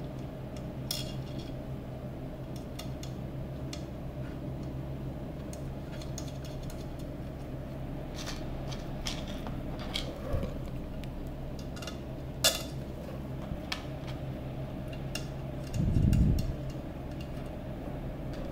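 Small M2.5 screws and brass standoffs clicking and clinking now and then as they are picked from a plastic bowl and fitted into a base plate, over a steady low hum. A dull thump comes near the end.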